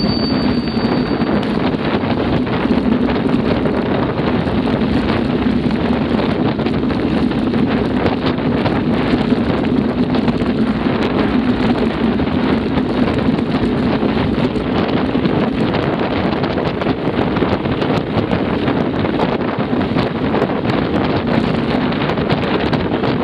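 Steady wind noise buffeting the microphone while riding a mountain bike, mixed with the rumble of the tyres on a gravel dirt track and many small clicks and rattles.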